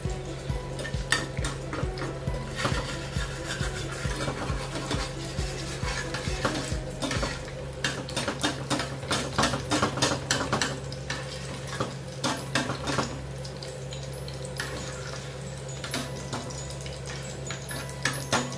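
Tocino (sweet cured pork) bubbling and frying in a pan alongside an egg frying in a second pan, heard as a dense, irregular crackle of small pops.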